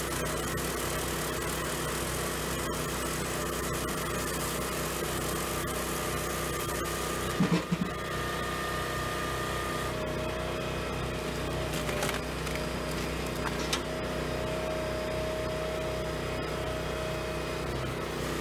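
Small firewood processor's engine running steadily, with a short cluster of loud knocks about halfway through and a steady whine coming in after them.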